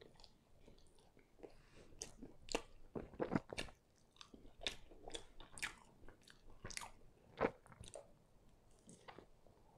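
A person biting and chewing a slice of chicken-and-cheese pan pizza close to the microphone: a run of irregular sharp mouth clicks and smacks.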